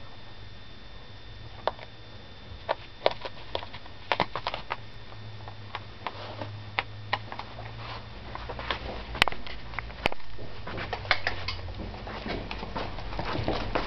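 Irregular light clicks and taps from a bobtail puppy moving about, coming unevenly and thicker in the second half, over a low steady hum.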